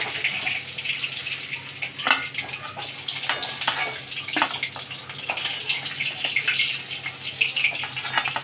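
Hot oil sizzling and crackling in a steel kadai as fried rohu fish steaks are lifted out, with a few sharp clinks of a metal slotted spoon against the pan and plate.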